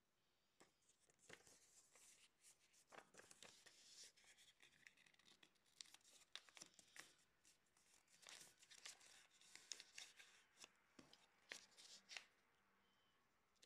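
Faint rustling and creasing of a sheet of paper being folded and pressed flat by hand on a tabletop, with many small taps and scrapes; it goes quiet for the last second or so.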